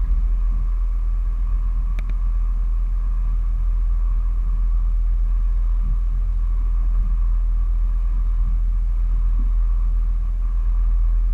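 Steady low rumble of a cabin cruiser under way, its engine drone and water noise picked up by a camera mounted on the boat.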